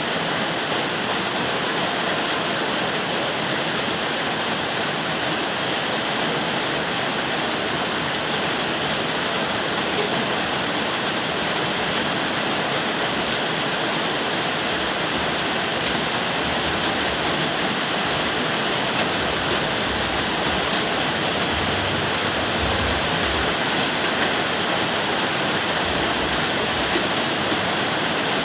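Steady heavy rain, an even, unbroken hiss of falling water.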